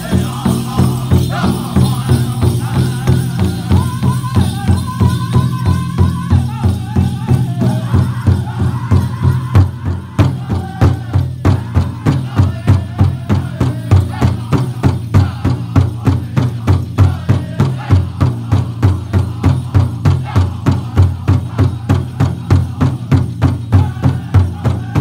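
Powwow drum group playing a chicken dance song: a big drum struck together in a steady, even beat, with group singing that is strongest in the first half and gives way to the drum alone after about ten seconds. The dancers' bells jingle along with it.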